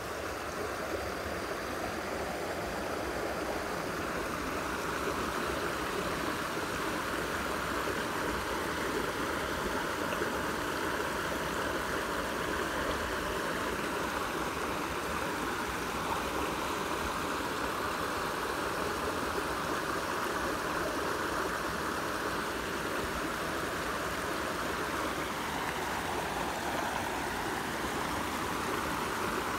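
Muddy floodwater, swollen by heavy rain, rushing over a small concrete weir and through the gaps between its pillars. It is a steady rush of falling water that grows louder over the first few seconds and then holds even.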